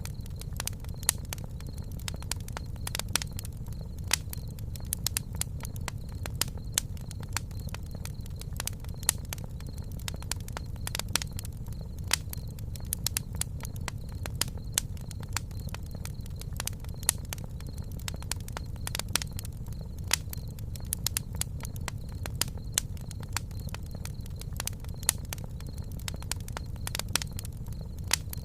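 Campfire burning with frequent irregular sharp crackles and pops over a low steady rumble.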